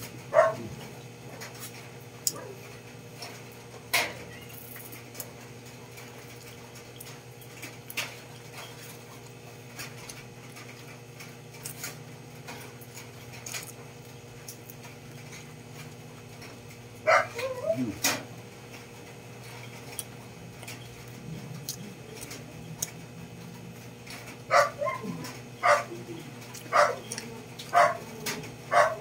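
A dog barking and yipping in short calls: one just after the start, a few together midway, then a quick run of barks near the end, over a steady low hum.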